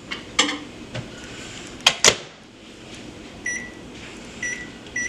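Microwave oven door being shut with clunks and a latch click. This is followed by three short, high keypad beeps as the cooking time is set.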